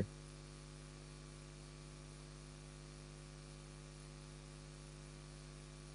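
Faint, steady electrical mains hum with a light hiss under it.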